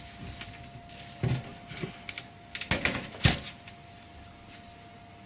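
Plastic front faceplate of a computer case being pushed on and snapping into place: a few knocks and clicks, the loudest about three seconds in. A faint steady tone runs underneath.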